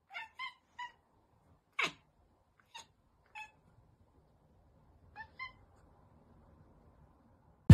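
Tabby kitten making short, high chirping meows in small groups: three quick ones, a longer call that falls in pitch, two single calls, then a quick pair.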